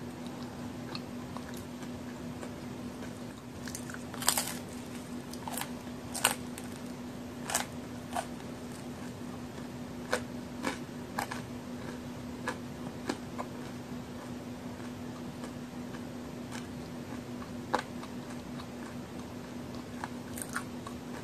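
Crisp bites and chewing on a large homemade chocolate-and-raisin cookie, close to the microphone: sharp crunches come every second or so at irregular intervals, the loudest about four and six seconds in. A steady low hum runs underneath.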